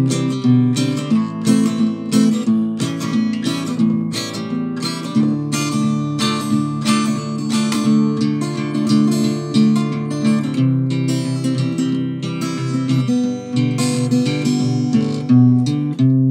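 Acoustic guitar strummed steadily, about two strums a second, changing chord a few times: the instrumental close of the song after the last sung line.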